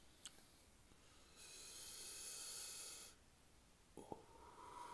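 Quiet close-mic breathing: a soft breath hiss lasting a little under two seconds in the middle, with a few faint clicks before and after it.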